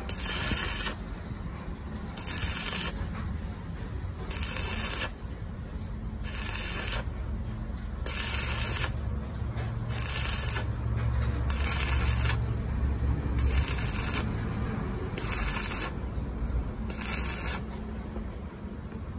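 Stick-welding arc crackling in short bursts, about ten in all, roughly two seconds apart, over a steady low hum.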